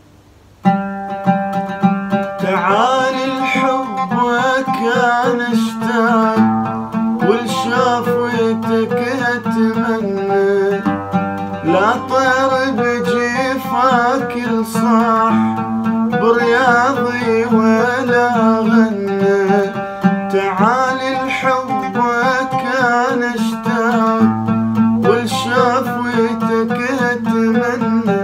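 Oud played with a plectrum, a melodic run of plucked notes starting about a second in, with a man singing over it in an Iraqi style.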